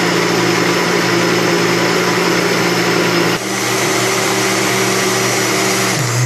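Countertop blender motor running steadily at full speed, blending sweetened condensed milk and cocoa powder into brigadeiro. There is a brief change in the motor's sound about halfway through. Near the end it slows, dropping in pitch, and switches off.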